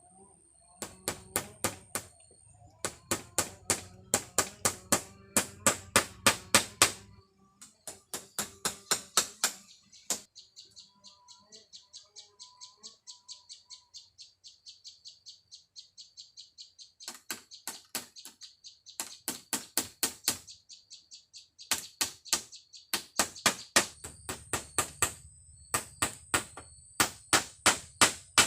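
Rapid runs of sharp knocks, several a second, coming in bursts with a quieter stretch in the middle: a tool striking bamboo while a shelter is being built. A thin, steady high chirping of insects or birds carries on underneath.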